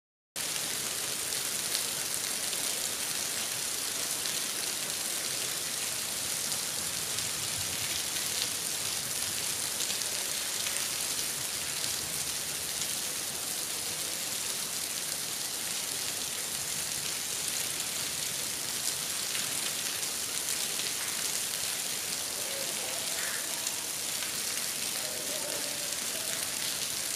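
Steady hiss of rain, even and unchanging throughout.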